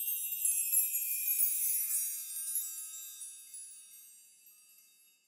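Shimmering chime sound effect, a cluster of high, bell-like wind-chime tones ringing together and fading out over about five seconds.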